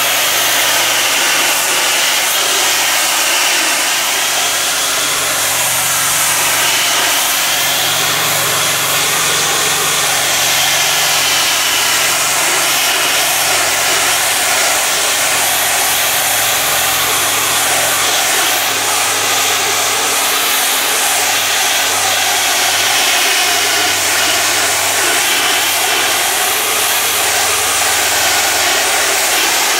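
Greenworks Pro 2200 PSI electric pressure washer running steadily, its high-pressure jet spraying against vinyl siding, the pitch of the spray drifting slowly up and down as the wand moves.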